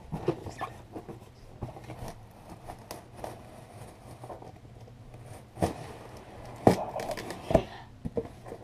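Knife cutting and sawing through a cardboard box, with scraping and tearing of the cardboard, and a few sharp knocks in the second half.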